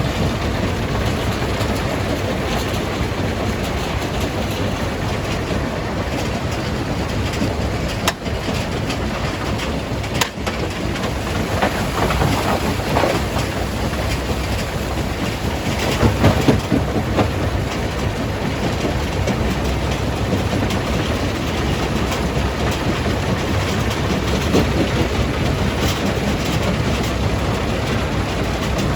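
Rock jaw crusher running and crushing stone: a steady, dense mechanical rumble with irregular knocks and clatter, loudest a little past halfway.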